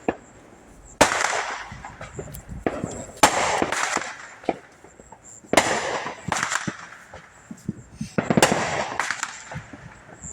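Small consumer fireworks going off: four sharp cracks a couple of seconds apart, each trailing into a second or two of crackling hiss, with smaller pops in between.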